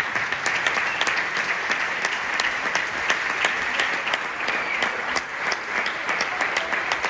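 Audience applauding steadily after a live jazz set, with many individual claps standing out from a dense wash of clapping.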